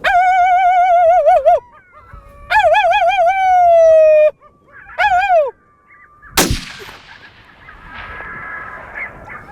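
Three coyote howls blown on a predator call, each warbling and the later ones falling away in pitch, followed about six seconds in by a single rifle shot that rings out and fades slowly.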